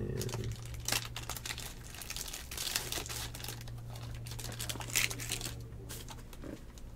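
Plastic wrapper of a trading-card pack crinkling and crackling in the hands in uneven spells, with the sharpest crackles about a second in and again about five seconds in.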